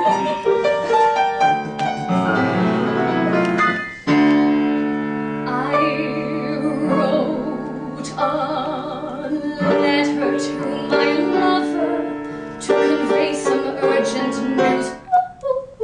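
Piano accompanying a woman singing in an operatic soprano voice with vibrato; the opening seconds are mostly piano chords before the voice comes in.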